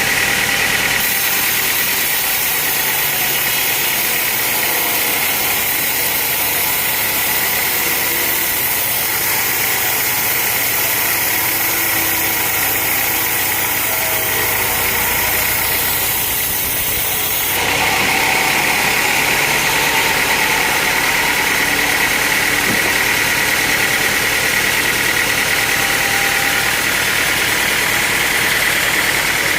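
Sawmill engine running steadily. A high hiss joins about a second in and stops about seventeen seconds in.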